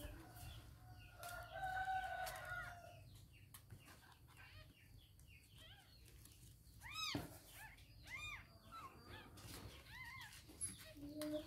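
A rooster crows faintly, about one to three seconds in, followed by short, high, arching calls that come and go.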